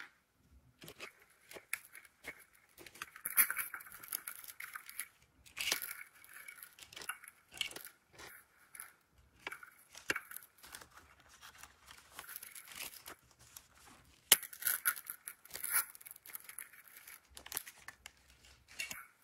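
Crinkly printed wrappers of a toy surprise ball torn open and unfolded by hand: irregular crinkling, rustling and tearing with small clicks, in bursts that are loudest a few seconds in and again about three-quarters of the way through.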